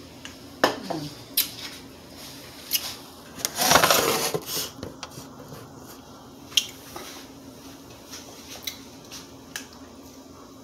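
Kitchen clatter: scattered sharp knocks and clinks of dishes and utensils being handled. About four seconds in there is a louder noisy rustle that lasts about a second.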